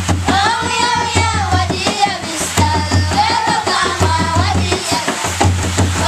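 A group of children singing together, accompanied by hand-played drums keeping a steady beat.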